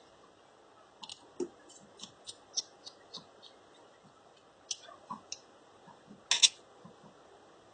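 Scattered small clicks and ticks of a precision screwdriver driving screws into a Moto E4 Plus phone during reassembly, with a louder double click about six and a half seconds in.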